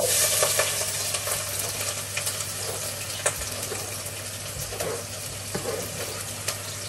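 Sliced red onion dropped into hot cooking oil, sizzling loudly at once and then easing off slowly, with scattered crackles and pops.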